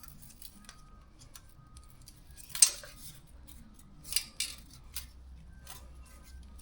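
A zip tie being worked around exhaust header wrap: a few sharp plastic rasps and clicks, the loudest about two and a half seconds in and two more just after four seconds.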